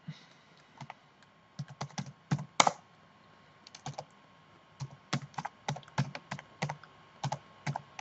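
Computer keyboard typing: irregular keystroke clicks in short runs, with a brief pause about three seconds in and one louder keystroke just before it.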